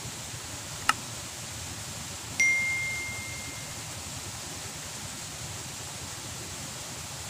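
A sharp mouse-click sound effect, then about a second and a half later a single bright bell ding that rings out and fades over about a second. This is the click-and-bell of a subscribe-button animation, heard over a steady background hiss.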